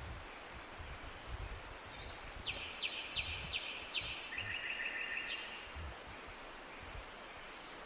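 A songbird singing one short phrase of about five quick notes that runs into a fast trill, over steady outdoor background noise with a low rumble.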